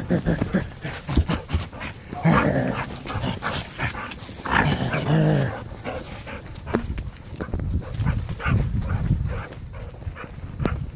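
A dog vocalising twice with drawn-out sounds, about two seconds and four and a half seconds in, amid the rustle of footsteps and paws moving through fallen leaves.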